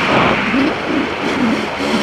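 KTM 250 EXC two-stroke dirt bike engine running under way, its revs rising and falling in quick swells as the rider works the throttle, over a steady rush of wind and trail noise.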